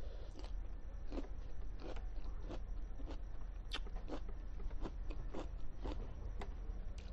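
A person chewing a mouthful of food close to the microphone: a run of short, sharp mouth clicks about one and a half a second, over a steady low hum.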